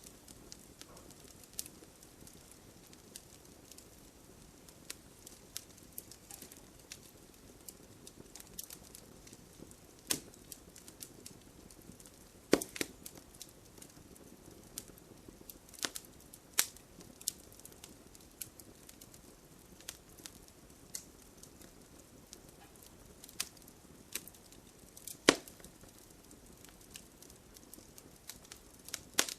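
Wood fire crackling: irregular sharp pops and snaps over a faint low hiss. A few pops stand out loud, the loudest about halfway through and again near the end.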